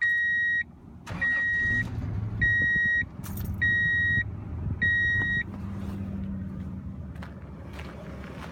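Dashboard warning chime beeping five times, about once a second, while the 2002 Toyota Tundra's 3.4-litre V6 is cranked and starts about a second in, then idles steadily. No belt squeal is heard: the alternator and power steering belts have just been tightened.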